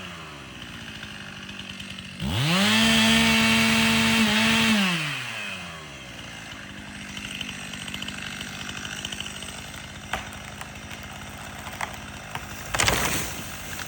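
Chainsaw idling, revved up to full throttle about two seconds in and held for roughly three seconds before dropping back to idle. A short, sudden loud noise comes near the end.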